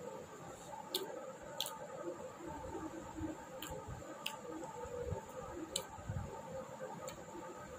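Close-up eating sounds: chewing with about six sharp, wet lip smacks and mouth clicks at irregular intervals, and soft low chewing and swallowing sounds between them.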